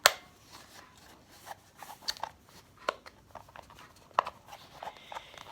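Scattered small plastic clicks and handling noises as the battery cover of a small alarm clock is worked open by hand, with a sharp click at the very start and a few louder ones around the middle.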